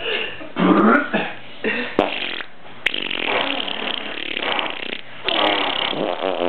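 Fake fart noises made by blowing a raspberry into a hand pressed against the mouth: several buzzing blasts, the longest lasting about two seconds in the middle.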